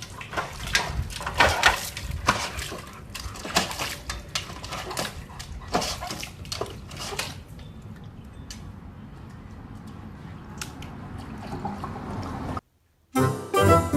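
A dog at a cardboard box of boxed macaroni and cheese, making irregular crackles and rattles that thin out after about seven seconds. Near the end it cuts off, and music starts.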